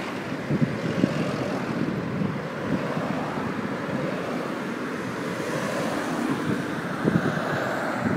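Cars and a van driving past one after another on an open road: a steady rush of tyres and engines, with wind buffeting the microphone in short thumps about a second in and again near the end.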